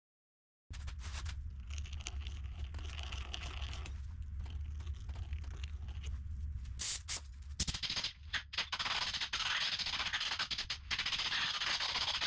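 A power drill enlarging the bolt holes of a Toyota brake caliper's mounting flange to 9/16 inch, the bit scraping through the metal, with a few sharp knocks partway through and harsher cutting near the end.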